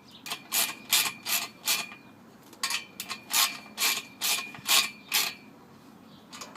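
Wrench and socket driver tightening stainless-steel nuts onto bolts in steel tubing: a run of sharp metallic ratchet-like clicks, two or three a second, pausing briefly about two seconds in before continuing.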